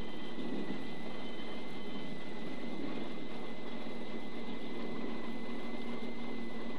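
Alfa Romeo 75 rally car's V6 engine idling, heard from inside the cabin: a steady hum with a thin, steady high whine over it.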